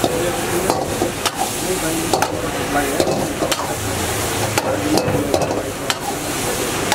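A metal spatula stir-fries chilli paneer in a steel wok, scraping and clinking against the pan at an irregular pace, roughly once or twice a second, over a steady sizzle of frying.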